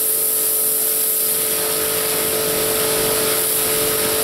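Pressure washer running steadily: the steady hum of its pump motor under the loud hiss of the water jet spraying onto stone patio slabs to rinse them off.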